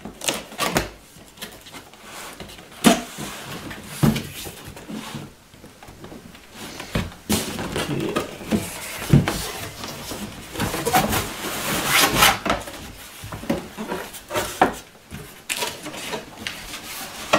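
Cardboard box being handled and opened by hand: scattered knocks and thuds of the box and its flaps, with a stretch of papery rustling and scraping in the middle.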